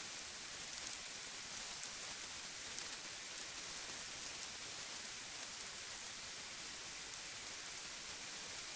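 Faint, steady rushing of a stream running past the campsite.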